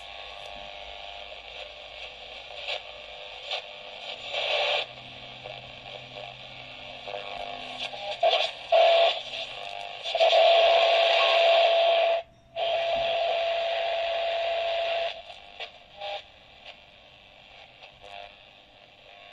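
ROCKA 11-band portable radio (a Kchibo KK-9813 clone) being tuned across the shortwave band, heard through its own speaker: hiss and static with snatches of signal coming and going. About ten seconds in a steady whistle holds for around five seconds, cut by a short dropout, and then the sound falls back to quieter static.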